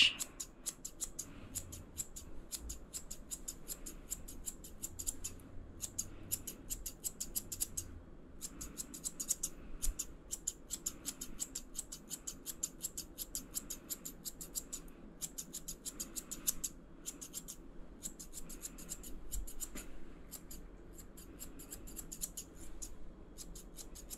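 Thinning shears snipping through a Border Collie's long coat: a quick, steady run of crisp snips, broken by a few short pauses.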